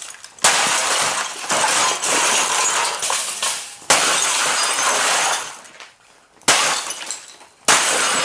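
A Gateway CRT computer monitor being smashed: about five heavy blows, each followed by a crash of breaking glass and cracking plastic that showers down and fades out.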